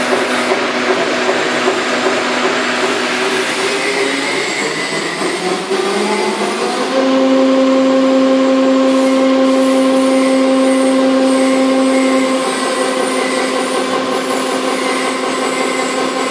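Corrugated box production machinery with its AC servo rotary cutter running, a steady mechanical noise with a humming whine. A few seconds in, the whine rises in pitch and grows louder, holds for about five seconds, then drops back.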